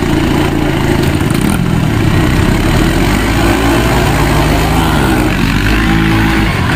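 Small dirt bike and ATV engines idling and revving, their pitch rising and falling. The deep engine drone cuts off suddenly near the end.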